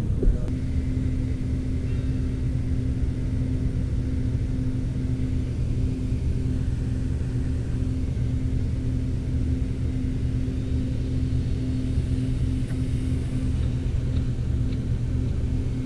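A boat motor running steadily, a low even drone with one constant tone over it.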